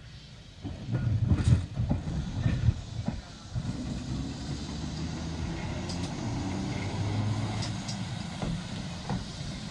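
Glasgow Corporation tram No. 22, an electric double-deck tramcar, running past on its rails. Its wheels give a run of knocks and clatter about a second in, then a steady low rumble as it passes close.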